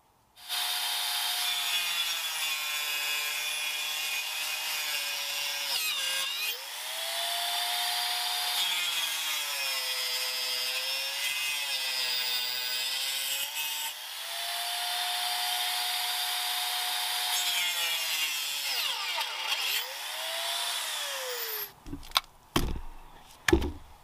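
Small handheld electric power saw cutting through a birch pole: a steady motor whine that dips in pitch each time the blade bites into the wood. The saw stops about 22 seconds in, followed by a few knocks as things are set down.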